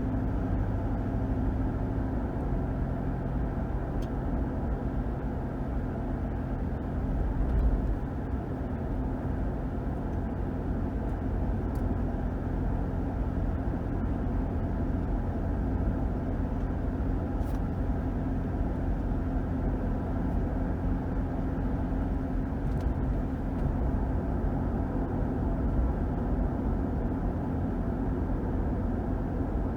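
2021 Ram 1500 pickup with its 5.7-litre HEMI V8 on the move at a steady pace: a low engine drone over tyre and road noise. A low bump comes about seven and a half seconds in.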